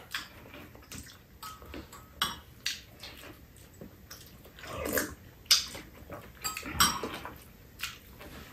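Eating sounds at a meal: metal spoons clinking against ceramic soup bowls, with short chewing and sipping mouth noises, as a few separate clicks spread through.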